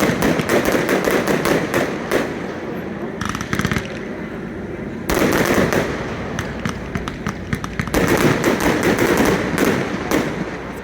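Aerial fireworks crackling and popping in dense, rapid volleys, in three louder waves: one right at the start, one about five seconds in and one about eight seconds in.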